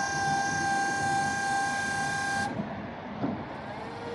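Electric forklift's hydraulic pump motor whining at a steady pitch, then cutting off suddenly about two and a half seconds in, followed by a quieter hum and a light click.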